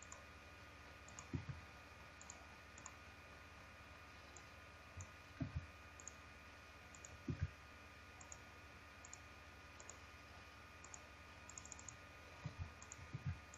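Faint, scattered clicks of a computer mouse, with a few soft low thumps, over a steady faint hum.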